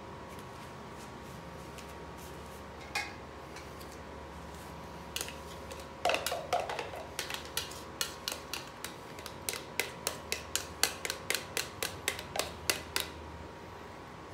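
A stirring stick clicking against a plastic paint cup as acrylic paint is mixed. There are two single knocks first, then from about six seconds in a quick, uneven run of clicks, about three a second, that stops a second before the end.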